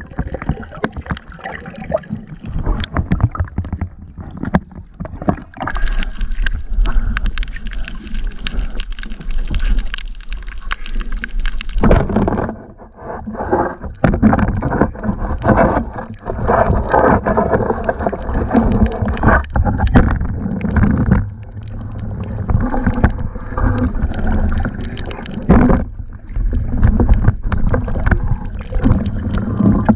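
Water sloshing and gurgling around an underwater camera housing, with many sharp clicks and knocks from handling and the spear; the sound changes abruptly twice.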